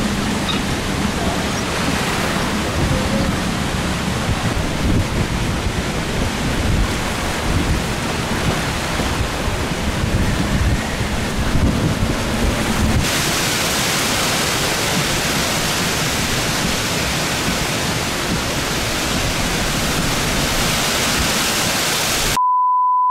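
Hurricane wind buffeting the microphone over rushing storm-surge floodwater, with a heavy low rumble; about thirteen seconds in it changes abruptly to a brighter, hissing wind-and-rain noise. Near the end a steady electronic beep starts.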